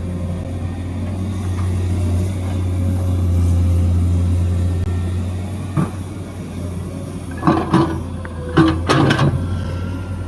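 Excavator's diesel engine running steadily, swelling a little a few seconds in. Several short, sharp noises cut in over it in the second half.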